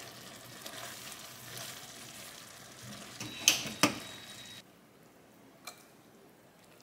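Spaghetti in tomato sauce sizzling in a hot frying pan as it is tossed with silicone tongs, with two sharp clacks a little past halfway. The sizzle cuts off suddenly after about four and a half seconds, leaving a quiet background with one soft click.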